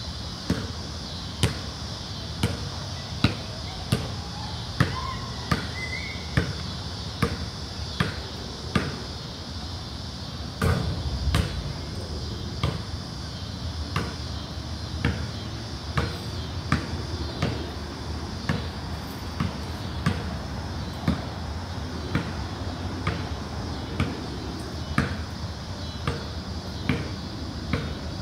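Basketball dribbled on a concrete court: steady, regular bounces, about one every 0.8 seconds, over a steady high hiss.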